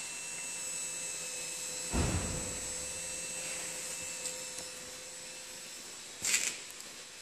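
A steady faint hum and whine from a Honda Dream 125 motorcycle before the engine is started, the strange noise that is suspected to be the electric fuel pump. A low thump comes about two seconds in and a short sharp click near the end.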